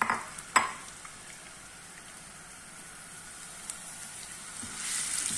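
Chopped onions sizzling and crackling in hot oil in a frying pan, just after being tipped in. Two sharp sounds come in the first second, and the sizzle grows louder near the end.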